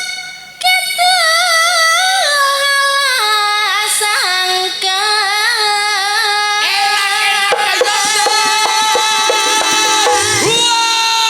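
A female voice sings a slow, long-drawn line with wide vibrato, its pitch stepping down over the first few seconds and then holding, over campursari band accompaniment. A run of quick drum strokes comes in near the end.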